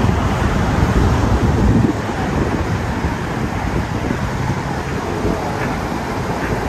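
Steady street traffic noise, a continuous roar of passing vehicles, a little louder for the first two seconds.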